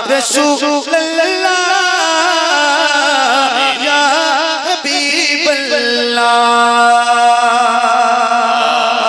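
Male voice singing a naat without instruments, in wavering, ornamented phrases, then holding one long steady note from about six seconds in.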